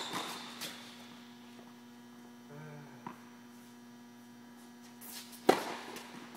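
A steady hum runs under the scene, and a tennis racket strikes the ball with a sharp crack about five and a half seconds in, the loudest sound. Fainter knocks of play come earlier.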